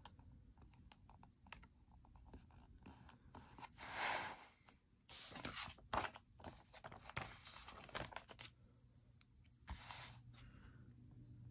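Planner pages being handled and turned: a series of brief paper rustles and swishes, the loudest about four seconds in, with light clicks and taps of paper and fingers between them.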